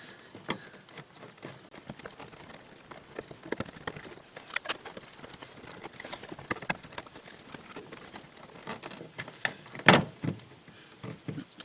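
Scattered light clicks and taps of a small Torx screwdriver and hard plastic trim being worked while a car door's mirror control plate is unscrewed, with one sharper click about ten seconds in.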